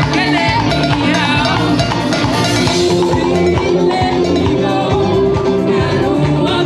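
Live pop band playing through PA speakers: electric guitars, bass and drums, with a singer's voice over a steady bass line.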